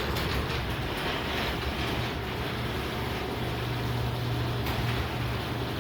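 A machine switched on through the relay, running steadily: an even rushing noise over a low hum.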